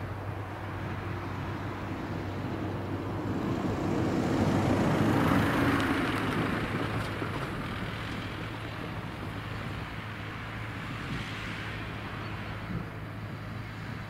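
Road vehicle noise: a steady low hum with a vehicle swelling past, loudest about five seconds in, then fading.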